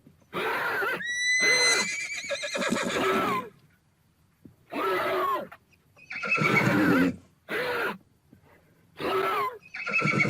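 Horse neighing repeatedly: one long whinny of about three seconds, then a string of shorter neighs with brief silences between them.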